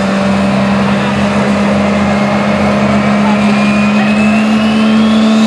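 Super stock diesel pulling truck's engine running loud and steady at the starting line, before the pull. A high whistle rises in pitch through the second half, typical of the turbochargers spooling up for the launch.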